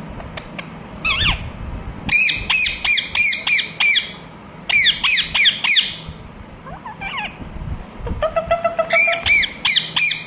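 Indian ringneck parrot (rose-ringed parakeet) calling in three runs of rapid, shrill, repeated squawks, about two seconds in, near the middle and near the end.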